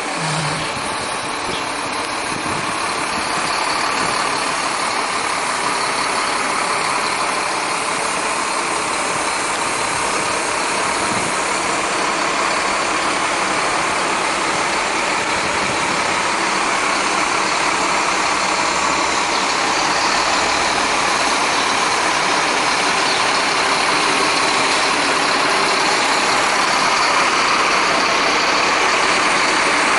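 Scania K340iB coach engine running at low speed and idling as the bus manoeuvres into a bay. It makes a steady noise that grows gradually louder.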